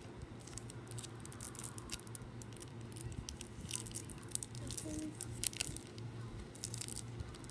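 Light, scattered taps and rustles of handling as makeup brushes and their cardboard box are picked up and set down, over a faint steady hum.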